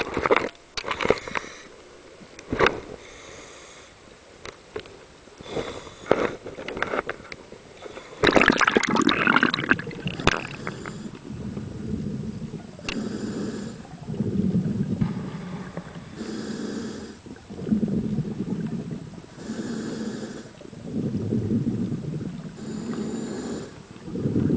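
Knocks and handling clicks, then a loud rush of water about eight seconds in. After that, a diver breathes underwater through a vintage twin-hose scuba regulator in a slow, regular rhythm: a hiss on each inhalation alternating with a low bubbling rumble as each exhalation vents.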